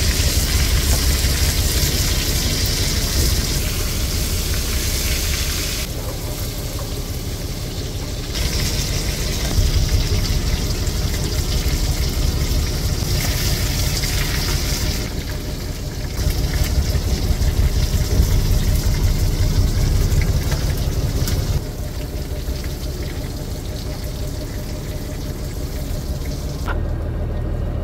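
Fish pieces sizzling as they deep-fry in hot oil in a wok, over a steady low rumble.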